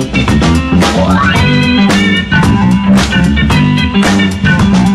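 Background music: an upbeat instrumental with guitar, bass and a steady drum beat.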